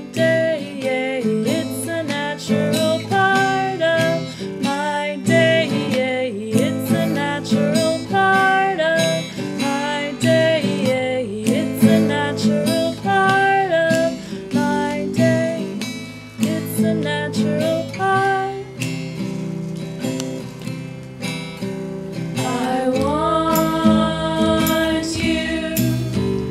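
Instrumental break of a song: acoustic guitar strummed in a steady rhythm with a picked melody line over it, and a voice coming in singing near the end.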